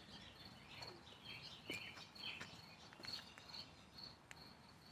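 Faint outdoor ambience: an insect trilling on and off at a steady high pitch, with a few short bird chirps and light clicks.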